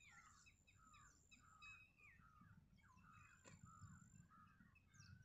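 Faint birds chirping and calling, many short rising and falling notes from several birds, over a low rumble, with a single click about three and a half seconds in.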